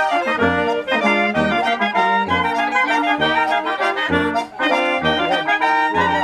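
Oompah band playing live: tuba bass notes on the beat under clarinet and accordion, with brass joining in a lively oom-pah rhythm.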